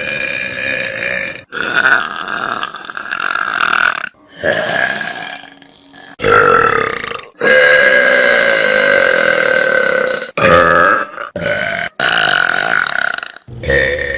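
A string of loud human burps, one after another with abrupt breaks between them. The longest, drawn out for about three seconds, comes just past the middle.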